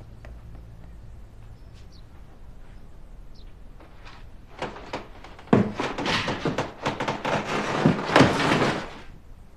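A dense run of thumps, bangs and scuffling from about five and a half seconds in, lasting about three and a half seconds, as a man thrashes about on a cardboard box. Before it there are only a few faint clicks.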